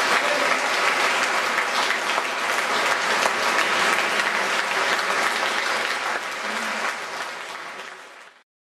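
Concert audience applauding, a dense, steady clapping that fades away near the end and then cuts off.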